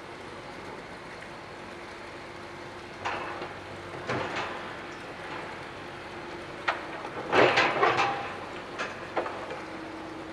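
Demolition excavator's engine running with a steady drone while its grab pulls at steel framework and timber debris, setting off clattering crashes of metal and rubble. The crashes come in scattered bursts, loudest in a cluster about seven seconds in.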